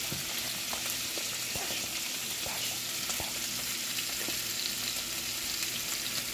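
Chicken pieces frying in a cast-iron skillet: a steady sizzle, with a few faint clicks.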